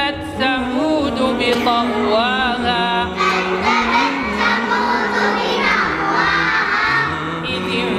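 A group of voices, children's among them, chanting a melody together without pause, the pitch rising and falling over a held lower note.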